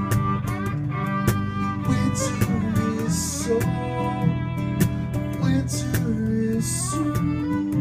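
Instrumental passage on violin, strummed acoustic guitar and cajon: the violin carries the melody with some sliding notes, over steady guitar chords and regular cajon hits.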